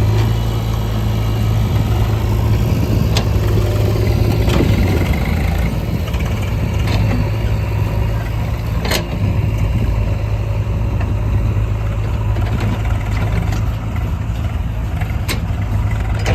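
Diesel engine of a JCB 3DX backhoe loader running steadily at an even speed while loading soil, with a few sharp knocks scattered through.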